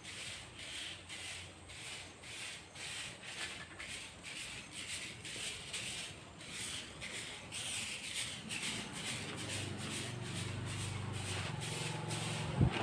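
A jhadu grass broom sweeping a concrete path in repeated swishing strokes, about two a second.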